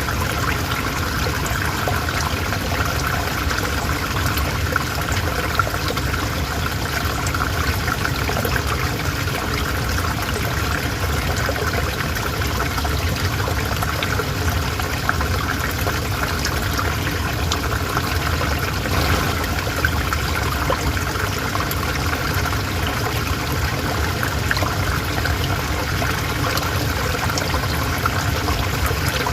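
River water flowing steadily: a continuous rush and trickle, dotted with many small splashes.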